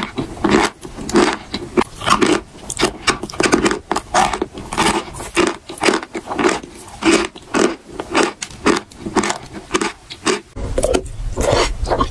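Close-miked crunching of a block of dry white chalk being bitten and chewed, about two crunches a second. About ten seconds in it changes to wetter chewing of chalk mixed into a paste, with a low hum behind it.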